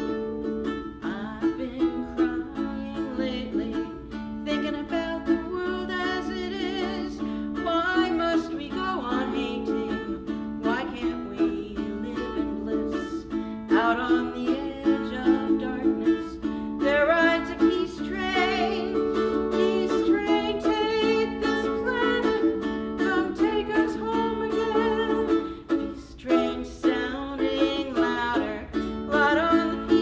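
Folk song performed live: a ukulele strums steady chords while a woman sings. An end-blown flute is heard only at the very start.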